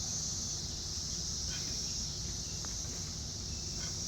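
Steady high-pitched chirring of insects, over a constant low rumble, with a few faint clicks.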